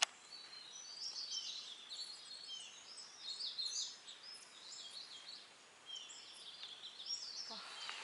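Birds chirping and calling in quick, high notes, busy for the first few seconds and again near the end, over a faint steady hiss. A sharp click right at the start.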